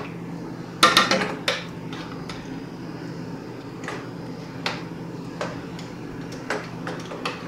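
Stirring utensil scraping and knocking against the side of a stainless steel saucepan while stirring a thick, lumpy cocoa-and-sugar mixture by hand: a quick run of clinks about a second in, then single taps about once a second.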